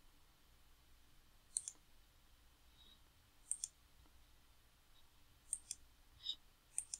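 Computer mouse button clicking: four quick double clicks about two seconds apart, with a softer single click between the last two.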